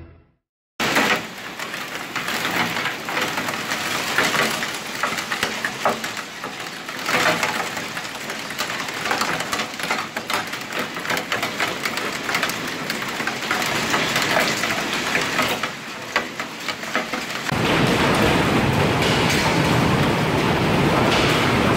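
Hailstorm: a dense clatter of hailstones striking buildings and the ground, mixed with heavy rain. About 17 seconds in it changes to a steadier, fuller rushing noise of hail and rain.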